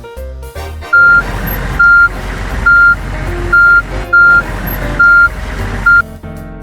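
Garbage truck's reversing alarm beeping at a steady single pitch, a little more than once a second, starting about a second in, over the low rumble of the truck's engine.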